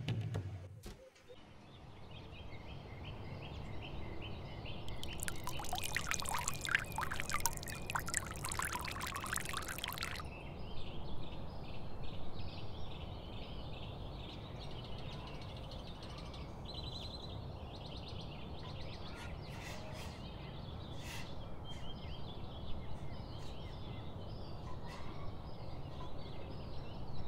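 Kitchen cooking sounds from a steel pot on the stove: a dense, crackling pour for about five seconds starting around five seconds in, as brown sugar goes into the pot of water, over a steady low hiss. A few light clicks come near the end as the syrup is stirred with a wooden spoon.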